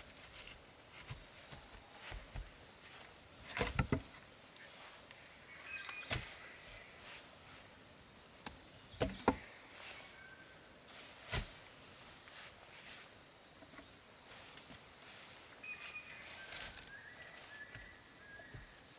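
A few scattered knocks and clatters, a small cluster about four seconds in and single ones later, over quiet outdoor ambience, with short high bird calls now and then.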